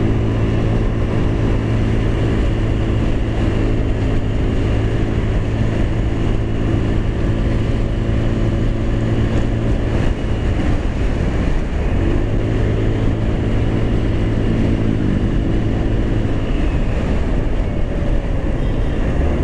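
Motorstar Easyride 150N's 150cc scooter engine running steadily under load on a steep uphill climb, its pitch shifting up and back down a few times in the second half. The engine does not sound strained on the climb.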